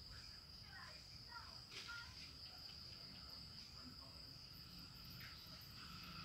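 Faint, steady high-pitched insect trill, like crickets at night, with a few short faint chirps in the first two seconds.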